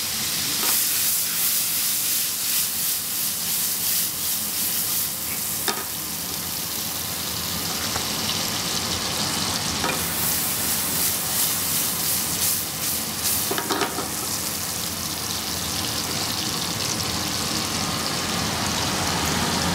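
Diced guanciale frying in its rendered fat in an aluminium pan, with a splash of wine cooking off: a steady sizzle with scattered crackles and a few sharper pops.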